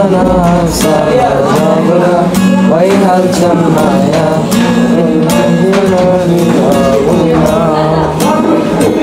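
Acoustic guitar, capoed with a pencil tied across the neck, strummed in a steady rhythm while a voice sings a melody over it.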